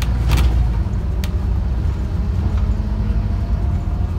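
Scania OmniCity bus under way, heard from inside the passenger cabin: a steady low engine and road rumble with a faint whine, and a few sharp clicks or rattles in the first second and a half.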